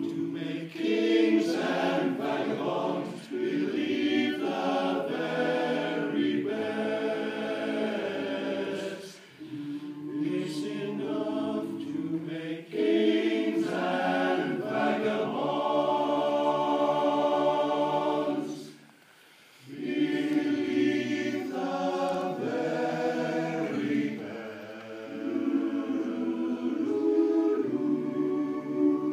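Men's choir singing a cappella in close harmony, long held chords and moving parts, with a brief pause about two-thirds of the way through before the singing resumes.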